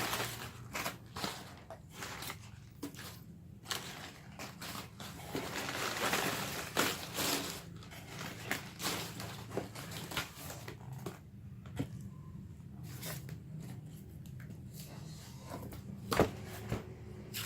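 A parcel being opened by hand: rustling and tearing of the wrapping, with scattered small clicks and knocks. There is a louder sharp knock near the end.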